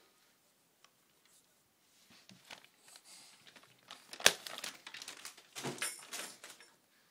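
Rustling and crinkling in short spells, starting about two seconds in, with a sharp click a little after four seconds.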